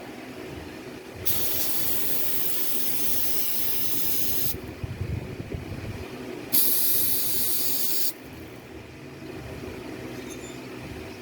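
Aerosol can of brake cleaner spraying in two hissing bursts, the first about three seconds long starting a second in, the second shorter and louder about six and a half seconds in, blasting the dirt off a VVT filter.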